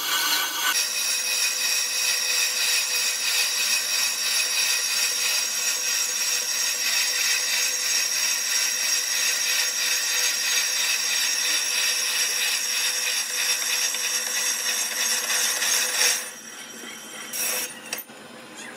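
A power tool working metal: a steady, high-pitched abrasive noise that stops about sixteen seconds in, with one short burst near the end.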